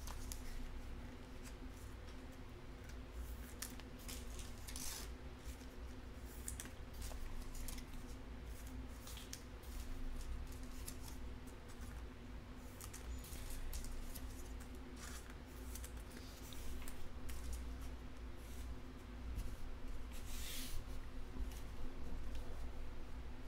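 Trading cards and a plastic card sleeve being handled on a table: short, scattered scratchy clicks and rustles, with a longer sliding rustle near the end. A steady low electrical hum runs underneath.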